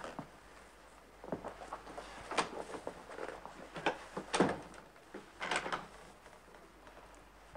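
Scattered knocks and clicks of objects being handled, a few at a time, with the loudest about two and a half, four and a half and five and a half seconds in.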